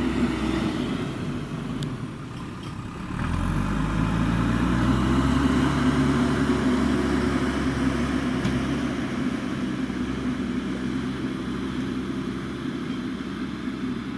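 JCB backhoe loader's diesel engine running. About three seconds in it picks up revs and gets louder, then runs on steadily.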